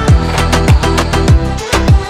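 Background dance music with a steady beat: a deep kick drum that drops in pitch, about every 0.6 seconds, over held bass and synth notes.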